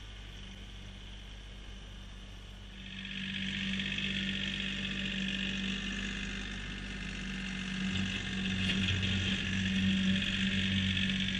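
Kioti CK3510 compact diesel tractor running as it drives across the lot. It grows louder about three seconds in as it comes close, with a high whine over a steady low drone, and the low drone strengthens again near the end.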